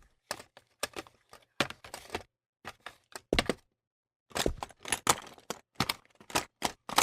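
A quick run of sharp clicks and knocks, in small clusters with dead silence between them, a pause of about a second near the middle.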